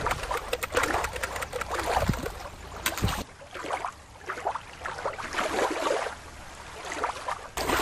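Shallow water lapping and splashing over sand as a plastic toy shark is pushed through it. About three seconds in, the sound changes abruptly to a quieter, irregular water noise.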